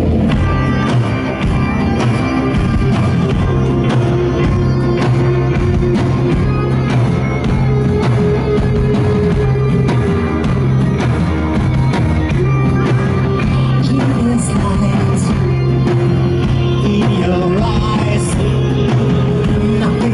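Rock band playing live and loud: a steady drum beat over sustained bass and guitar, with a voice singing.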